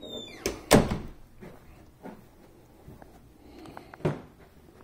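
Interior door being closed: a short falling squeak, then a loud knock about a second in, and a lighter knock near the end.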